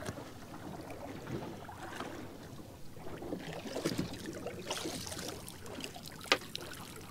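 Choppy water sloshing around a small fishing boat, with wind noise and scattered handling clicks and knocks; one sharp click about six seconds in.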